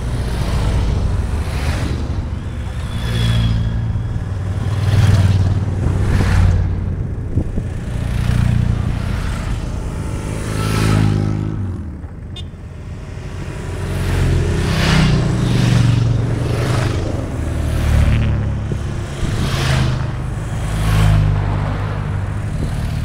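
Harley-Davidson V-twin motorcycle engine running under way, its pitch rising and falling with the throttle. It drops in pitch as it slows about halfway through, then picks up again. Rushes of wind noise come and go throughout.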